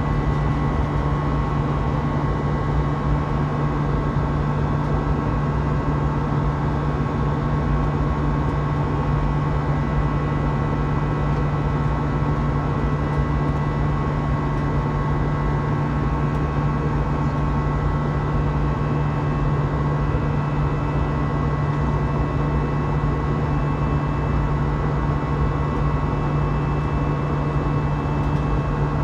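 Airbus A320 cabin noise in the climb after takeoff: the jet engines and rushing air make a steady drone with a low hum and a few steady whining tones, unchanging throughout.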